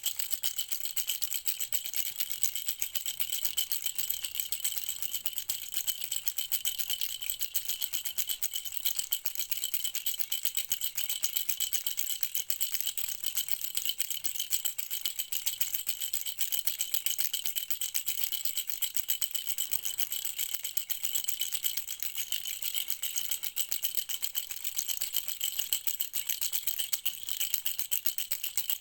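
A hand rattle shaken fast and continuously: a steady, dense stream of high, bright clicking with no pauses.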